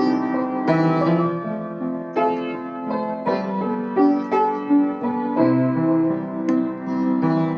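Solo piano playing a slow hymn tune in sustained chords, which change roughly every second.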